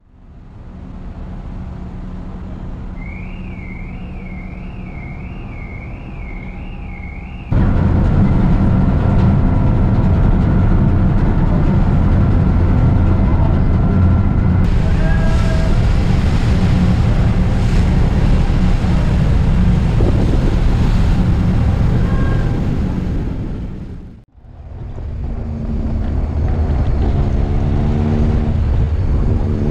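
Steady low rumble of a car ferry's engines with wind on the microphone, cut in among road-trip clips. Before it comes a quieter engine hum with a warbling high tone, and near the end an engine accelerating through the gears in rising steps.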